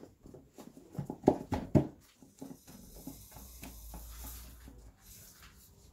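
Hands working buttered filo pastry sheets into a round tray: soft rustling with a few quick pats and taps, the loudest just over a second in.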